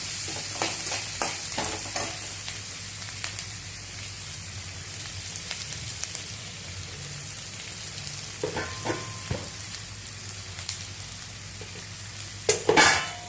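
Onions and tempering frying in oil in a pan, sizzling steadily while a spoon stirs and scrapes against the pan. The spoon knocks a few times, loudest near the end.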